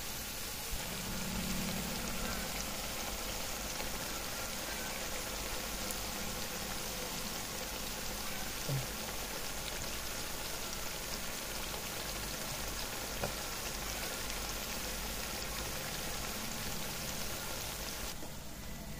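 Batter-coated pumpkin-flower pakoras deep-frying in hot oil: a steady sizzle, with a couple of faint clicks.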